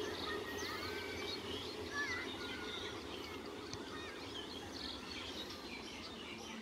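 Many small birds chirping and twittering, over the low, slowly fading running noise of an electric multiple-unit local train moving away down the line.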